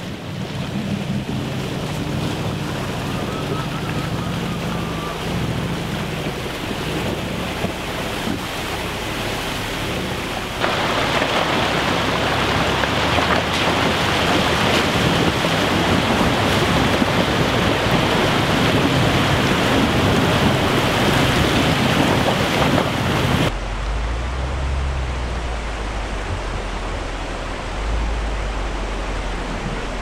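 Range Rover Sport SUV engine running with wind noise on the microphone. About ten seconds in, a loud rushing splash of water begins as the SUV fords a river. It cuts off suddenly near the end to a deep low rumble of the vehicle driving through shallow water.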